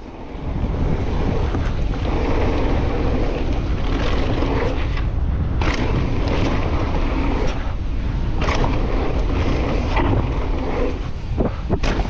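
Wind buffeting the microphone and mountain bike tyres rolling over a dry, dusty dirt trail at speed, with a few sharp knocks and clatters from the bike over bumps.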